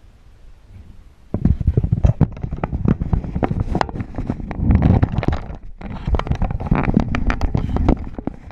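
A quiet low hum inside a lift car, then about a second in, loud irregular knocking, thumping and rubbing as the camera is handled and carried with its microphone against clothing.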